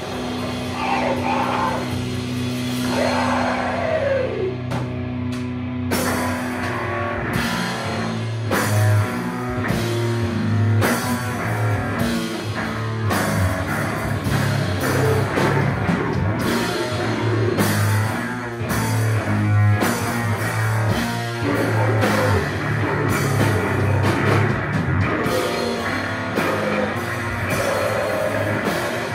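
Live heavy metal band playing: distorted guitars, bass and drum kit, with vocals. A sustained guitar note rings under the vocals at first, then the drums come in hard about seven seconds in and the full band plays on.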